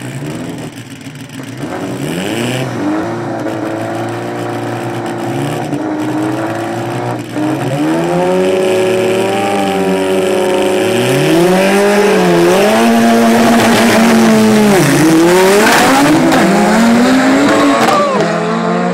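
Drag-racing cars revving hard at the starting line, engines held at high revs with repeated dips, then launching about three-quarters of the way in, the engine note climbing fast through the gears as they accelerate away.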